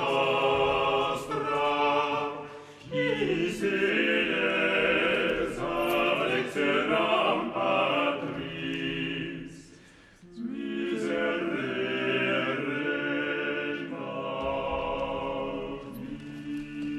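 Unaccompanied vocal ensemble singing slow, held chords in harmony, breaking off briefly about ten seconds in and then resuming.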